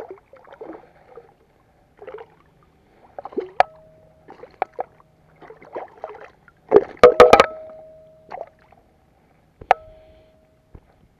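A hooked largemouth bass splashing and thrashing at the surface beside the boat while water sloshes and drips, as the fish is landed. Sharp knocks come about three and a half seconds in, in a loud quick cluster about seven seconds in, and once more near the end, each leaving a short ringing tone.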